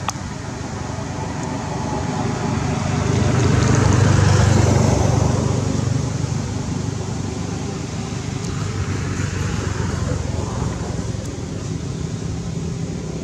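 Steady outdoor background noise with a low engine hum, swelling to its loudest about four seconds in and fading again, as from a motor vehicle passing.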